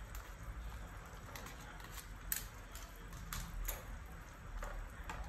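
White beech mushrooms being scraped with a metal ladle from a plastic colander into a pot of hot broth: soft splashing and a series of sharp ladle clicks, the loudest a little over two seconds in, over a steady low hum.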